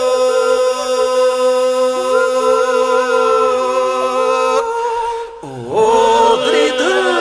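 Unaccompanied Albanian Lab iso-polyphonic singing, sung as a lament: voices hold a steady drone while other voices wind and ornament above it. About five seconds in the drone breaks off for a moment, then the voices re-enter with sliding pitches.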